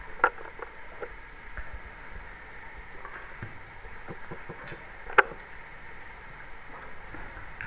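Airedale Terrier's jaws snapping shut at bubbles: two sharp clicks, one just after the start and a louder one about five seconds in, over quiet room tone.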